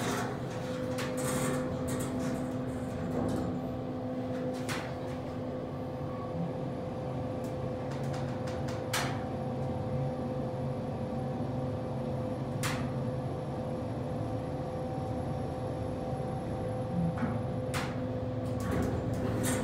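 Kone EcoDisc gearless traction elevator car riding up between floors: a steady hum with a constant whine, broken by a few sharp clicks several seconds apart.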